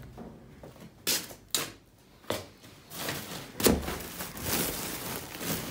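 A few sharp knocks and clicks from things being handled, then plastic bag rustling and crinkling from about three seconds in.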